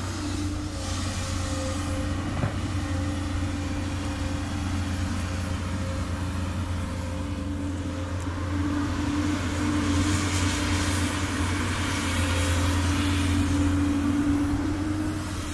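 Komatsu PC200 excavator's diesel engine running steadily, a little louder and hissier from about ten seconds in.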